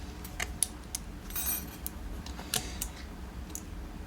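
Light metallic clicks and taps from a small screwdriver working at a lock, with a short scrape about a second and a half in.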